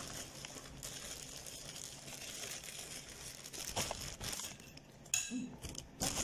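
Plastic packaging crinkling and rustling close to the microphone, with scattered clicks and a short clink about five seconds in.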